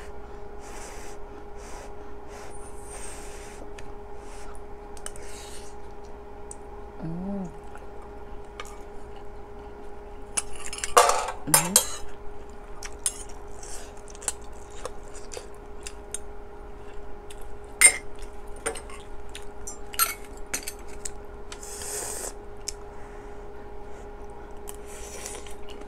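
Metal spoon and chopsticks clinking and scraping against a stainless steel pot and a metal bowl during eating, in scattered short clinks that are loudest about eleven and eighteen seconds in. A steady faint hum sits underneath.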